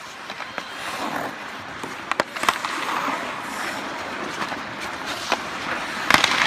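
Ice hockey play on a rink: skates scraping and carving the ice, with sharp clacks of sticks and puck every so often, the loudest just after six seconds in.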